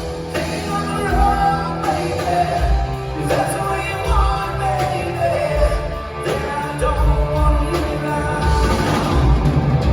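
Rock band playing live, with drums, bass and a singing melody line over the top.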